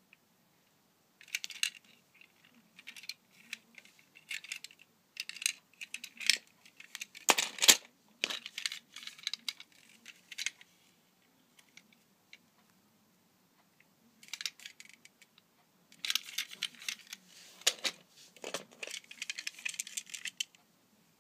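Plastic Plarail toy train cars (Keio Inokashira Line 1000 series) being handled: irregular clusters of light clicks and rattles as the cars are picked up, turned over and set down on a wooden floor. There is a louder knock about seven seconds in and a quiet pause in the middle.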